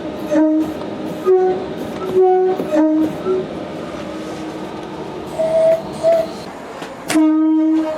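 Train's two-tone horn sounding short blasts, alternating between a high and a low note, over steady running noise. Two fainter, higher toots come a little past halfway, then a long, loud low blast near the end.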